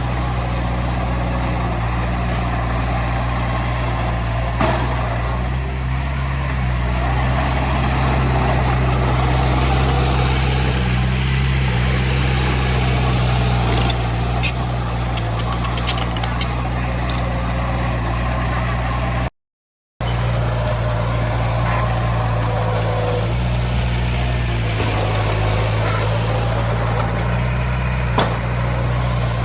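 Heavy diesel engine of construction machinery running steadily at a constant speed, with a few light clinks over it. The sound cuts out completely for about half a second two-thirds of the way through.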